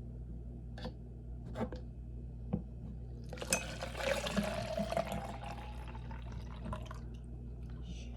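A few light clinks, then liquid poured into a glass for about two seconds, its pitch rising as the glass fills, over a steady low hum.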